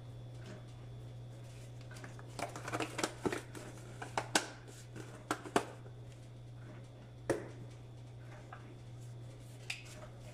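Light clicks and rustles as a glass jar of dried parsley is shaken and tapped over fish in an enamelled cast-iron pot, most of them bunched together a few seconds in. A single click near the end as a metal spoon is set down on the glass cooktop.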